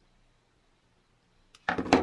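Near silence, then about a second and a half in, a short clatter of several knocks as parts of a disassembled electric drill are set down on a wooden workbench.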